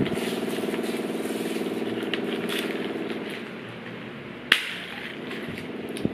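A steady engine-like hum that fades after about three seconds, and one sharp pop about four and a half seconds in, fitting a straw punched through the sealed film lid of a plastic milk-tea cup.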